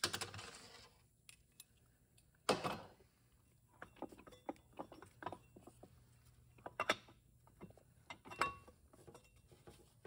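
Metal parts of a Ford 4R70W automatic transmission being handled during teardown: a clank at the start and a louder one about two and a half seconds in, then scattered light clicks and rattles as parts are worked loose inside the case.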